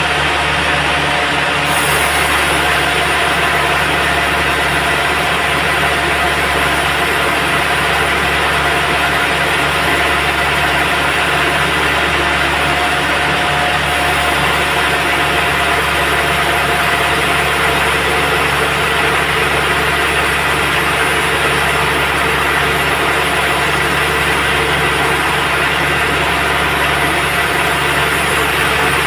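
Band sawmill machinery running steadily: a continuous, even mechanical drone with a steady whine over it.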